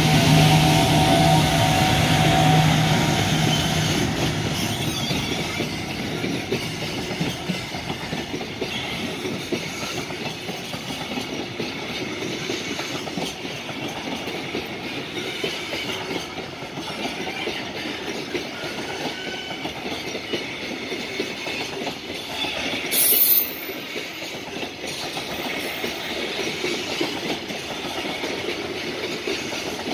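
An EF510 'Red Thunder' electric locomotive passes close by with a steady hum for the first few seconds. A long string of container wagons follows, rolling past with wheels clattering over the rail joints. A brief, loud, hissing burst of noise comes about 23 seconds in.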